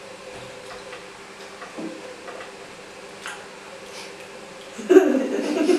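Quiet eating at a table: faint scattered clicks of pizza slices and plates being handled, over a steady low hum. Near the end a girl's voice breaks in suddenly, louder than anything before it.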